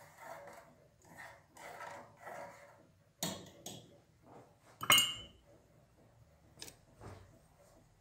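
Crockery being handled on a table: soft rustling, then a few separate knocks and one loud, briefly ringing clink of a spoon on a ceramic cup about five seconds in.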